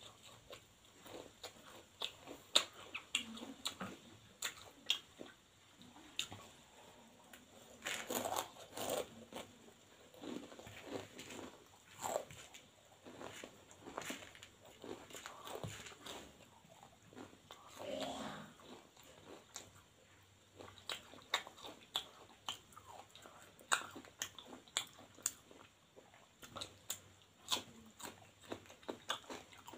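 Crunchy chewing and biting of bhujia, the crisp fried gram-flour noodle snack: many short, irregular crunches.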